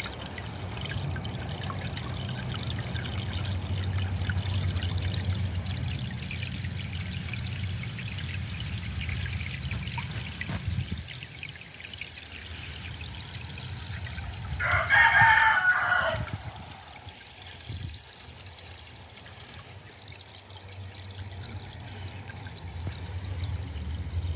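Small solar fountain splashing and trickling steadily into a tub fish pond. About fifteen seconds in, a rooster crows once, loud and about a second and a half long.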